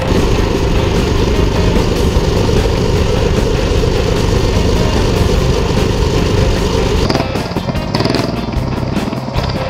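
Small gasoline engine running steadily on a ridden mini vehicle, with background music over it; the sound changes character about seven seconds in.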